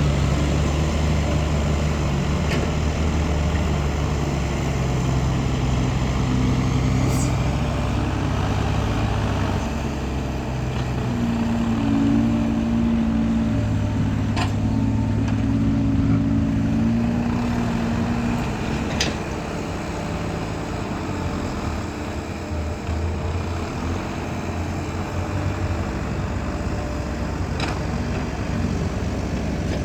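Diesel dump truck engine running steadily under load, climbing in first gear held long, with a few sharp clicks or knocks spaced through it.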